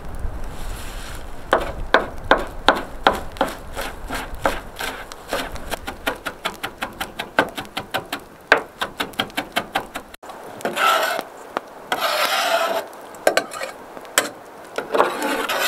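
Knife chopping fresh flat-leaf parsley on a cutting board: a fast run of sharp knocks, about four or five a second. After a break come several longer rough scrapes as the chopped herbs are swept off the board into a metal bowl.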